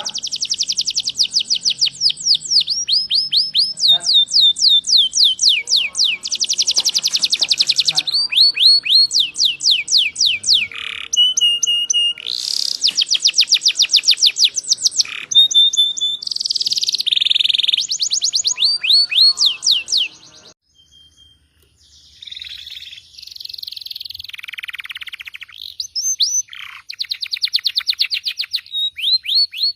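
Domestic canary in full song: long runs of rapid trills made of fast repeated down-slurred notes, mixed with rolls and buzzy tours, with a short break a little over two-thirds of the way through.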